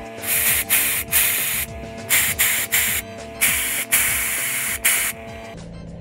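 Compressed-air blow gun blasting over a motorcycle cylinder head in about ten short hissing bursts of varying length, stopping about five and a half seconds in.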